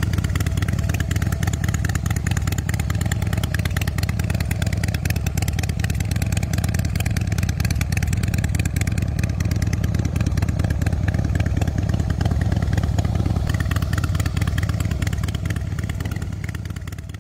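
2014 Harley-Davidson CVO Breakout's Twin Cam 110 V-twin, fitted with an aftermarket exhaust, idling steadily with an even, deep pulse. It fades out near the end.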